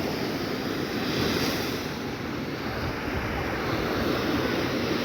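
Ocean surf: waves breaking and washing up a beach in a steady rush that swells and eases a little.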